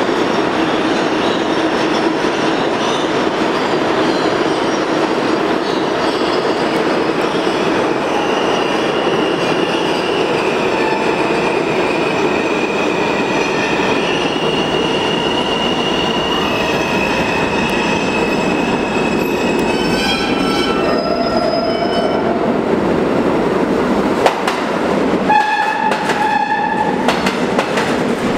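Subway trains running through an underground station: a continuous rumble and wheel-on-rail clatter with a high steady wheel squeal through the middle. Near the end a horn sounds in two short blasts as the garbage work train of flatcars and Redbird cars arrives alongside.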